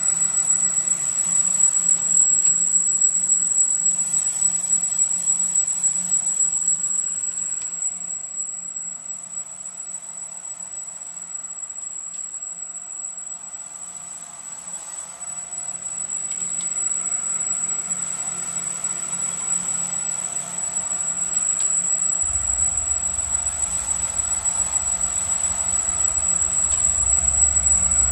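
Cylinder boring bar running with its flat-face cutter cutting a sleeve-flange counterbore at the top of a cylinder bore in a Cummins diesel block, with a steady high whine over a lower hum. It goes quieter for several seconds through the middle, and a deeper rumble joins about three-quarters of the way in.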